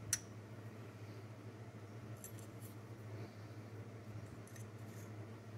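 Faint metallic clicks and taps of an AR-15 bolt and firing pin being set against a firing pin protrusion gauge: one sharper click at the start, then a few light ticks, over a low steady hum.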